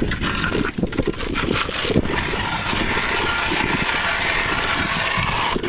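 Power ice auger running and boring through the ice, a steady engine-and-grinding noise that cuts off near the end.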